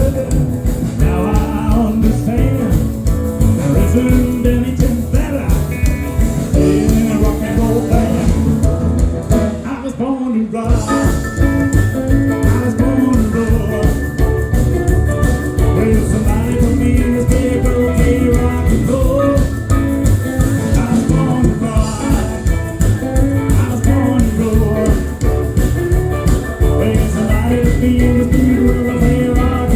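Live rock and roll band playing, with guitar and drums; the band stops briefly about ten seconds in, then plays on.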